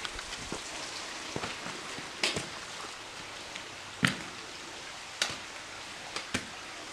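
Hiker's steps up a wet rocky stream bed: sharp clicks about once a second as trekking-pole tips and boots strike the rock, over a steady hiss of water trickling over the rocks.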